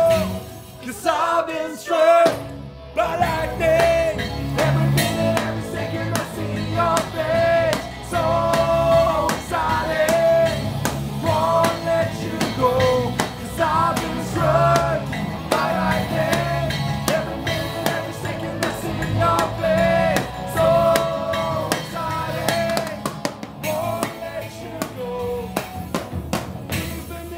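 Rock band playing an 80s-style rock song with singing, electric guitar and drum kit, with a short break about two and a half seconds in.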